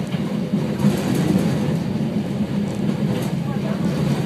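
Hakone Tozan Railway electric train running along the mountain line, heard from inside the front car: a steady rumble of wheels on rails and running gear.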